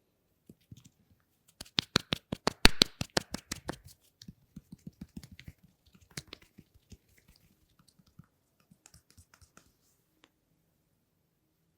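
A quick run of sharp taps and snaps from hands working on the head and hair during a massage, about nine a second for two seconds, then sparser and fainter ones.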